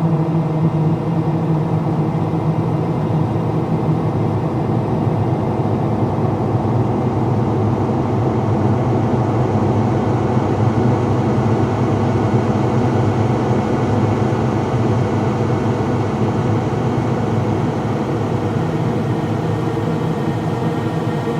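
Dark, eerie ambient drone: a steady low hum layered with many sustained tones, with no beat or pauses.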